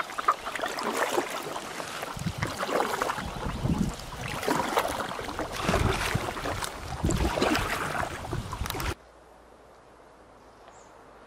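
Canoe on a river: irregular splashing and sloshing of water with knocks against the boat. It cuts off abruptly about nine seconds in, leaving only a faint, quiet background.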